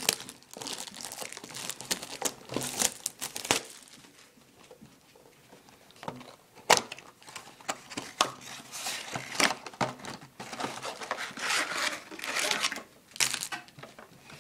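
Plastic shrink wrap crinkling and tearing as a cardboard trading-card box is unwrapped and opened, then the box and its foil card packs are handled. Bouts of crinkling come with a quiet gap and a single sharp snap about seven seconds in.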